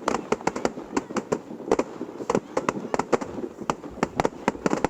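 Fireworks going off in a dense, irregular string of sharp bangs and crackles, several a second.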